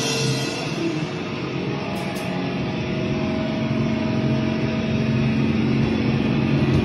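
Amplified, distorted electric guitar droning loud and steady as the band rings out at the end of a song, with no drum beat under it.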